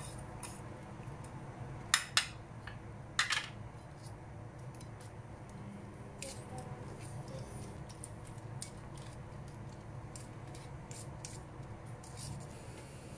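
A metal fork clinking against a ceramic bowl as eggs with chopped crabstick are beaten, a run of light taps from about six seconds in. A few louder knocks of crockery come near two and three seconds.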